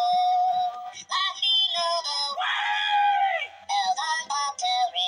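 Gemmy Christmas Party Animals animated plush goat singing its built-in song: a high-pitched recorded singing voice with music, played through the toy's small speaker, so it sounds thin with no bass.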